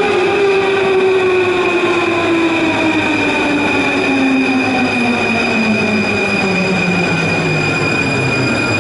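Paris Métro MF 01 train braking as it pulls into the station. Its traction motors' whine falls steadily in pitch as it slows, over the rumble of the cars rolling past, with a steady high tone above.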